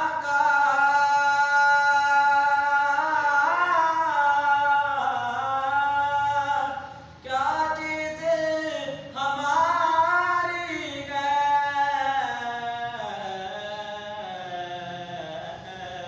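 A young man's solo unaccompanied chanting in long, wavering held notes that slide up and down, with short breaks about seven and nine seconds in and growing softer toward the end.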